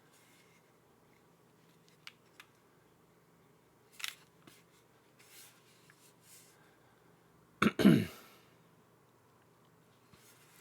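Quiet room with a steady low electrical hum, a few faint isolated clicks, and one short louder noise with a downward sweep about eight seconds in.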